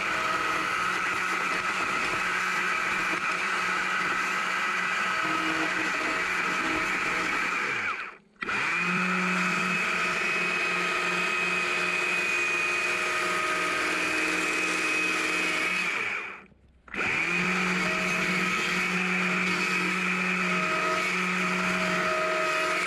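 Gas chainsaw running at steady high revs while cutting into a small log to remove wood, a continuous high-pitched whine. The sound drops out for a moment twice.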